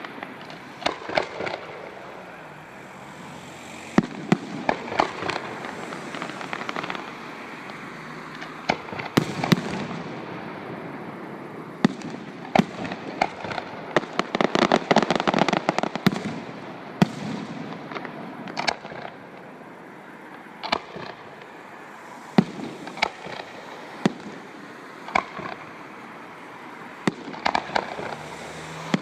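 Fireworks display: a string of sharp bangs from bursting shells, with bursts of crackling in between.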